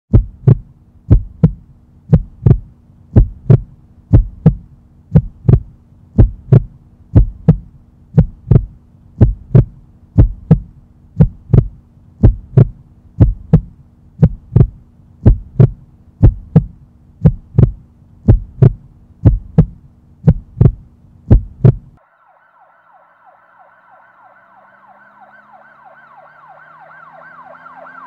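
Heartbeat sound: loud double thumps about once a second over a low steady hum, which all stop abruptly about 22 seconds in. A rapidly sweeping, siren-like alarm then fades in, growing louder toward the end.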